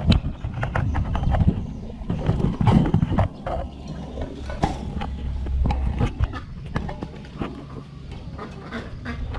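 Squirrels scrambling about a wire cage: a string of irregular clicks, taps and rattles as their claws grip the metal mesh, thickest in the first three seconds.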